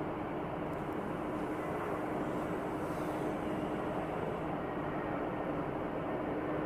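Distant jet airliner engines, a steady rushing roar with a constant low hum, as a twin-engine widebody rolls out on the runway just after touchdown.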